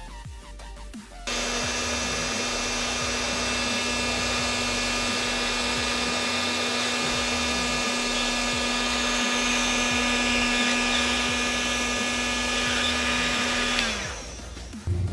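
Heat gun switched on about a second in, its fan blowing with a steady whine and air noise, then switched off near the end, the whine falling in pitch as the fan winds down. It is heating a DRV8302 chip on a motor-controller board to melt the solder under its pins.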